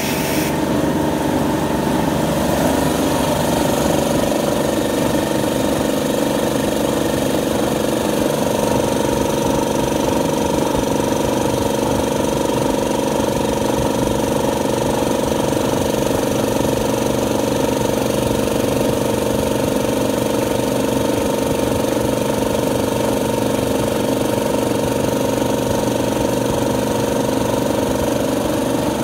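1988 Champion oilless air compressor running steadily, a continuous machine hum with a few constant tones.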